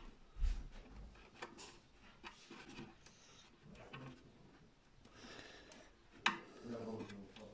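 Soft rubbing and small clicks of rubber cable grommets being pressed by hand into the holes of a metal consumer unit casing, with one sharper click about six seconds in.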